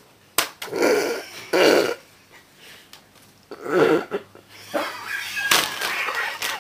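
A person farting: three rough, buzzy breaks of wind, two close together about a second in and one near four seconds, followed near the end by her laughing.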